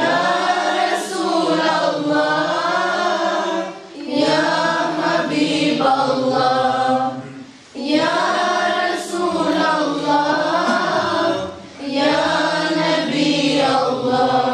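Unaccompanied male singing of an ilahija, a Bosnian devotional hymn, through a microphone: long held, ornamented notes in four phrases, with a short breath between each.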